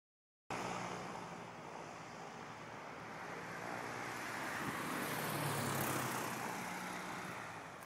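Light single-engine propeller plane flying low overhead, its engine and propeller growing louder to a peak about five to six seconds in, then fading as it passes.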